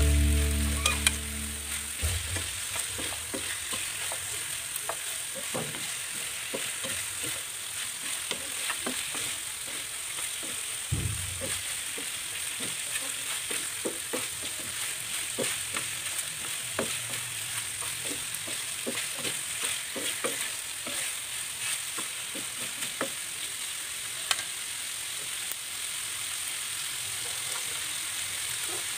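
Chicken pieces sizzling in hot oil in a non-stick frying pan, with a wooden spatula scraping and tapping against the pan as they are stirred and turned.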